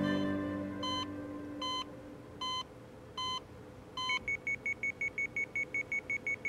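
Bedside patient monitor beeping slowly, one short tone a little under a second apart. About four seconds in, a higher, quicker alarm beep starts, about four or five a second, signalling a falling heart rate.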